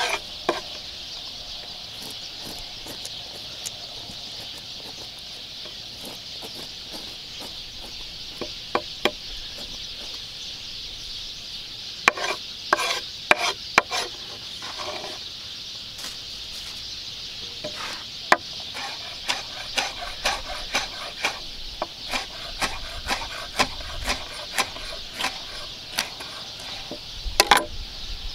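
Chef's knife scraping and tapping on a wooden cutting board as roasted peppers are scraped clean and cut, in irregular clusters of sharp taps around the middle and more densely through the second half, over a steady high hiss.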